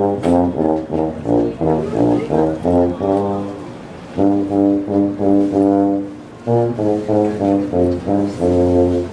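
Solo tuba playing a short melody of quick, separate notes in three phrases, with brief breaks between them.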